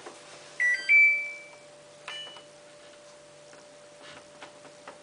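Samsung washing machine control panel beeping. A loud two-note rising beep comes about half a second in, then a single short higher beep about two seconds in, over a faint steady hum.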